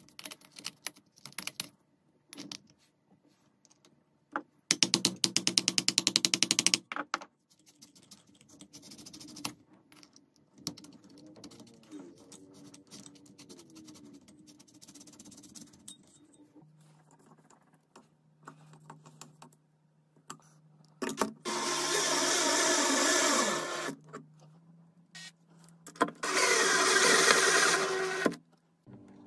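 Small metal clicks and knocks of parts being handled, with a run of rapid even clicking about five seconds in. Near the end, a power drill with a socket in its chuck runs twice, for about three seconds each time.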